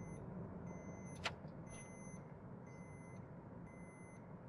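Toyota Rumion's seat-belt reminder beeping faintly about once a second; it keeps sounding because not every seat belt is buckled. Under it is the low, steady hum of the moving car's cabin, with a single click a little over a second in.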